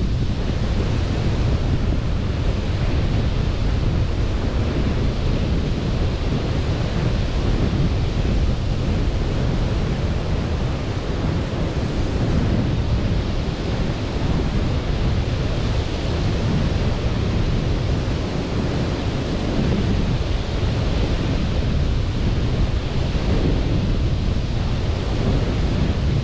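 Sea surf washing ashore in a steady rush that swells and eases slowly, with wind rumbling on the microphone.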